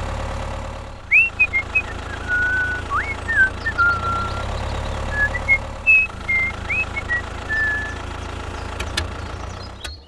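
Someone whistling a short, casual tune of rising glides and held notes over a steady low engine rumble from the tractor, which cuts out near the end.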